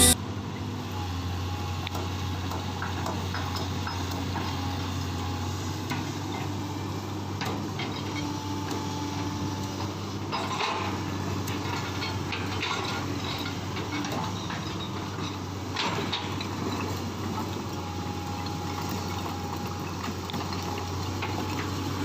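Excavator's diesel engine running steadily with a constant low hum, and a few short knocks and clanks, about ten seconds in and again near sixteen seconds.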